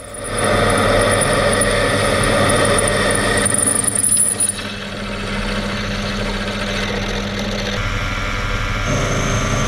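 Proxxon PD 250/e mini lathe running while a 10 mm twist drill bores into a spinning steel bar, run at a slowed spindle speed for a cleaner cut. The machine noise holds several steady tones. Near the end the tone changes as a small boring bar takes over in the drilled hole.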